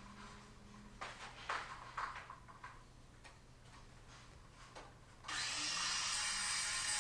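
A few light knocks and clatters as the board and saw are handled, then about five seconds in a Makita 18V cordless circular saw starts and runs steadily through conti board.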